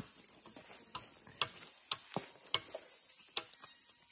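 Wood campfire crackling: about seven sharp, irregularly spaced pops and snaps, over a steady high hiss.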